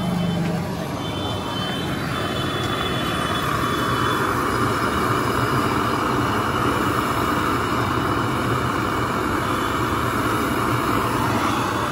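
Steady vehicle and traffic noise, a little louder through the middle.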